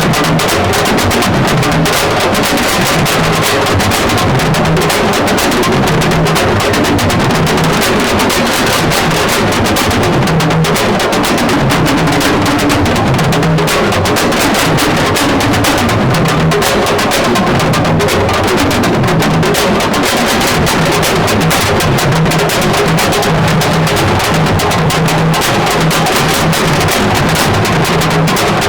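Music with prominent drums and percussion, playing steadily at an even loudness.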